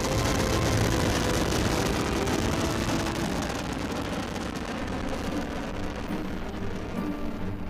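Rocket engines at launch: a steady, loud rumbling roar with a crackling hiss spread across all pitches.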